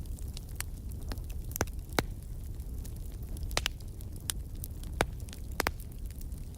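Wood fire burning in a fireplace: a steady low rumble of flames under irregular sharp crackles and pops, the loudest pops about two seconds in and again about five seconds in.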